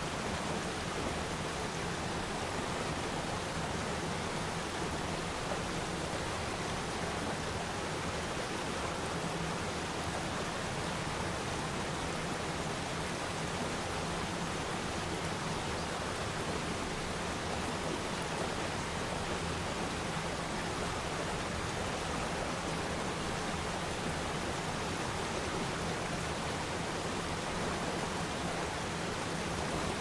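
Waterfall pouring over rocks: a steady, unbroken rush of falling water.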